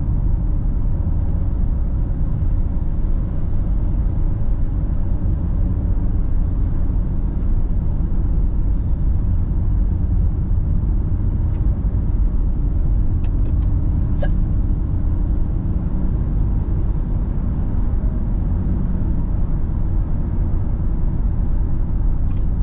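Steady low rumble of a vehicle's engine and tyres on the road, heard from inside the moving vehicle's cabin. A few faint ticks come a little past the middle.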